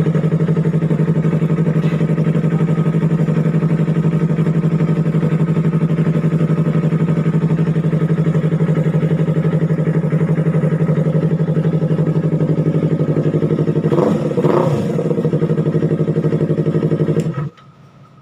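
Yamaha R3 parallel-twin engine breathing through an Akrapovic exhaust, idling steadily with a deep, bassy note. Its pitch wavers briefly about fourteen seconds in, and the sound cuts off abruptly near the end.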